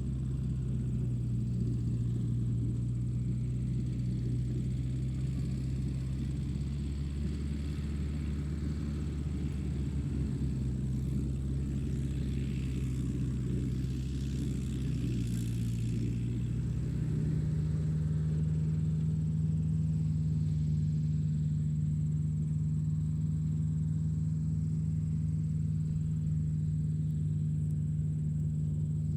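Tractor engine running steadily under a constant low hum, its pitch stepping up a little about two-thirds of the way through as the engine speed rises.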